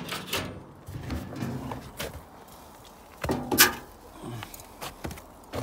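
Steel lid of a 55-gallon ugly drum smoker being lifted off and handled: a few sharp metal clanks and knocks, the loudest about three and a half seconds in.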